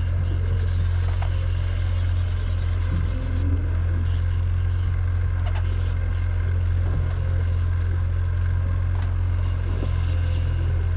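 Boat engine running steadily at trolling speed, a constant low drone.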